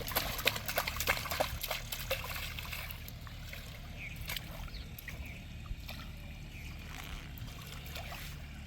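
Water splashing and sloshing in shallow canal water, with a quick run of sharp clicks and knocks in the first couple of seconds, then a steadier, quieter low rumble.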